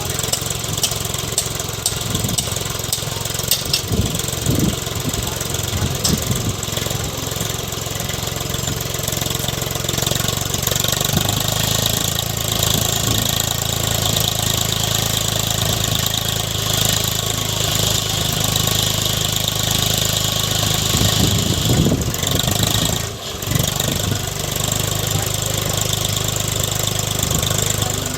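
Diesel engine of a JCB 3DX backhoe loader running steadily at work, with scattered knocks in the first few seconds and a brief dip about 23 seconds in.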